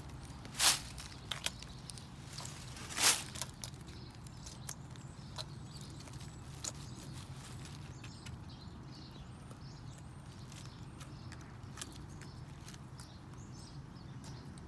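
Chicken pecking at bare dirt: scattered light beak taps, with two louder knocks in the first few seconds, over a steady low hum.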